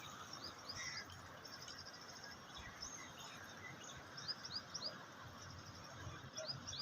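Birds chirping faintly in short rising notes, in quick runs of three or four, over a steady background hiss.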